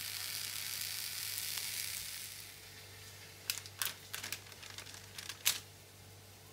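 Grilled vegetable slices sizzling on a hot cast-iron griddle pan, the hiss fading after about two seconds. Then a few sharp crinkles and taps as a slice is set down with silicone tongs on parchment paper on a baking tray.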